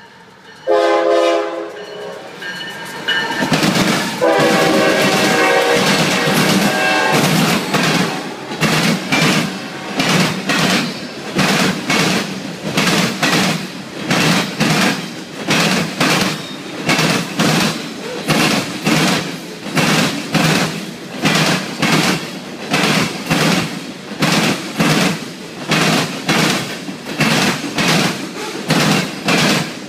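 CSX diesel freight locomotive sounds its air horn in two blasts, the second one long, as it approaches. Then a long string of refrigerated boxcars rolls past close by, the wheels clicking over rail joints in a steady rhythm about once a second.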